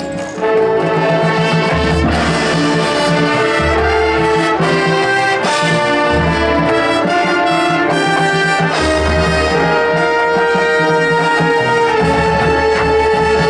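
High school marching band playing its field show: the brass section holds loud, sustained chords over heavy low accents that land every couple of seconds.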